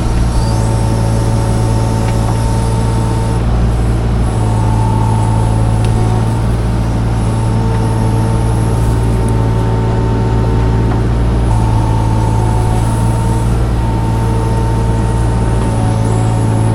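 Mini excavator running steadily under work while digging a ditch in wet clay, with a higher hydraulic whine that starts and stops every second or two as the controls are worked.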